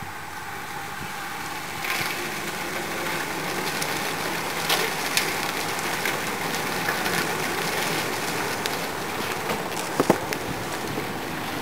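A bunch of road-race cyclists passing close by: a swelling hiss of many tyres on a coarse road surface, with scattered light clicks and two sharp clicks about ten seconds in.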